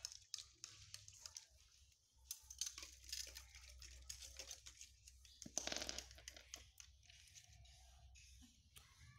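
Faint scattered clicks and rustles of baby macaques shifting about and handling a small bottle on a tiled floor, with one louder rustle a little past halfway, over a low steady hum.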